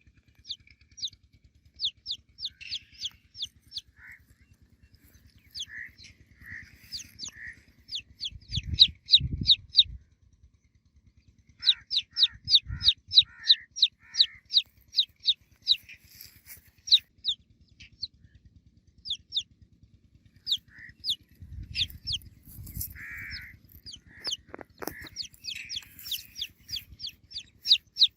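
Baby chicks peeping: many short, high, falling peeps in quick runs of several a second, with pauses between runs. A few low thumps are heard, about a third of the way in and again past the middle.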